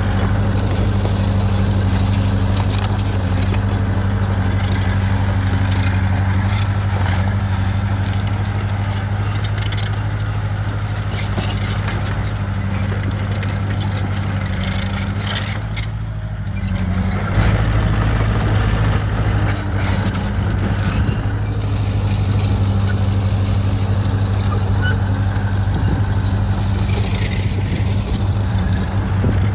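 Bulldozer's diesel engine running steadily under work, with metallic clinking and clicking over it. The engine sound dips briefly about sixteen seconds in, then picks up again.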